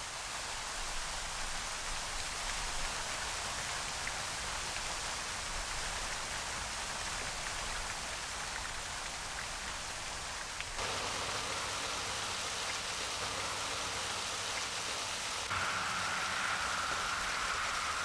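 Thin waterfall spilling down a rock face and splashing into a shallow pool: a steady hiss of falling and pattering water that shifts abruptly about 11 and 15 seconds in.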